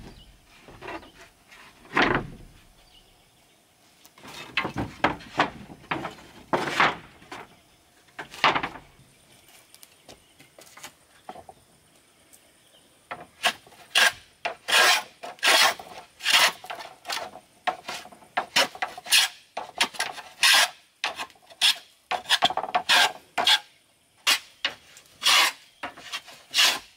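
A hand tool scraping along wood in back-and-forth strokes. There are a few scattered strokes at first, then from about halfway a steady run of roughly two strokes a second.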